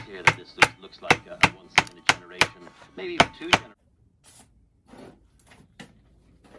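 Hammer blows on timber: about ten sharp, ringing strikes at roughly three a second, stopping about three and a half seconds in, followed by a few faint knocks.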